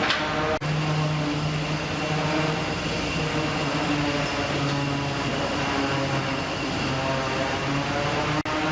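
Steady drone of a fishing vessel's engine and onboard machinery, a constant low hum under a noisy rush. It breaks off for an instant about half a second in and again near the end.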